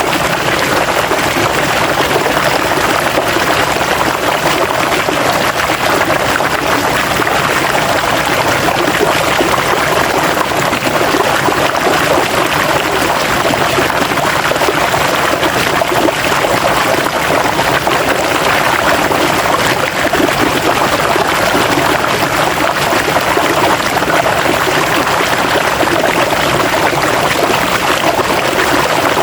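River water flowing steadily over rocks, a continuous rushing and babbling with no breaks.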